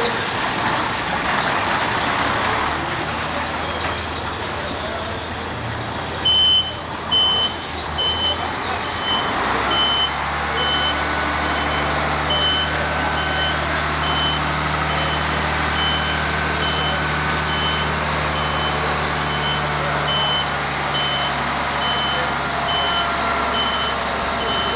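Concrete mixer truck backing up: its reversing alarm beeps at an even pace, about one and a half beeps a second, starting about six seconds in, over the steady running of its diesel engine.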